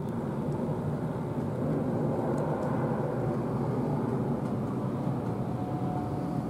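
Boeing 747-400 on approach passing low overhead: steady jet-engine noise with a faint steady whine.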